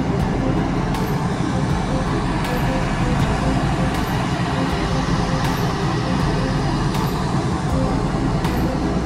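Steady low rumble of a ship's engines and machinery heard on its open deck, with a faint steady hum and faint high clicks recurring every second or two.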